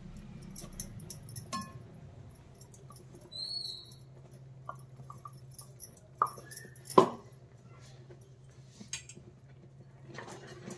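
Utensils knocking and clinking against a steel kadhai as grated coconut is tipped into jaggery syrup and stirred in with a wooden spoon, with one sharp clank about seven seconds in, over a low steady hum. Two short high chirps come through, around three and a half and six and a half seconds in.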